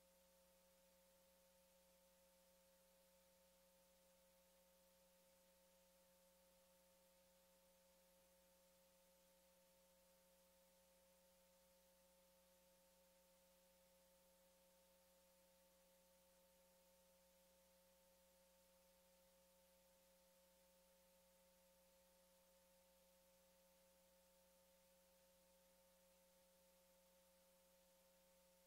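Near silence: only a faint, steady electronic hum made of a few fixed tones, unchanging throughout.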